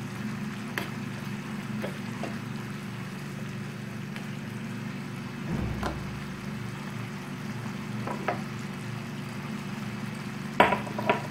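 Jaggery syrup with grated coconut bubbling in a non-stick pan while a spatula stirs it, scraping and knocking against the pan now and then, loudest twice near the end. This is the coconut-jaggery filling cooking down.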